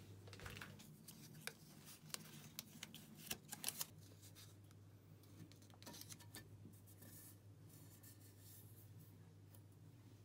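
Faint handling noise: soft rustling and scattered clicks, with a cluster of sharper clicks about three to four seconds in, over a low steady hum.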